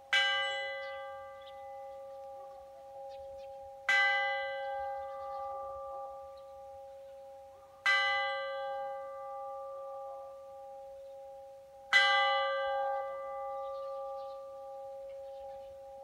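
Orthodox church bell struck slowly, four single strokes about four seconds apart, each ringing on long after the strike.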